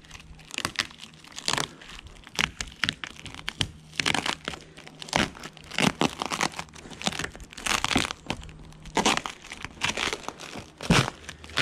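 Red Tuck Tape being peeled and torn off a tractor's plastic cab roof: a run of irregular ripping and crinkling bursts.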